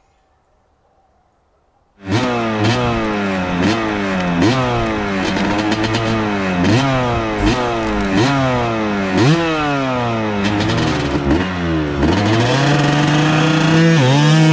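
2018 Yamaha YZ250 single-cylinder two-stroke motocross engine, starting abruptly about two seconds in and revved in over a dozen quick blips, each rising then dropping back. Near the end it is held at higher revs as the rear wheel spins in the dirt.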